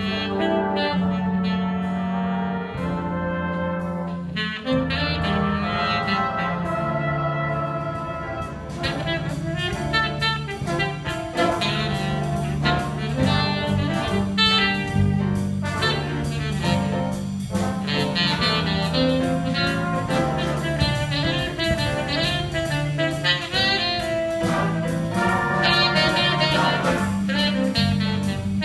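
Jazz big band playing, a tenor saxophone out front over trumpets and trombones, with a drum kit keeping time; the drum strokes grow busier from about four seconds in.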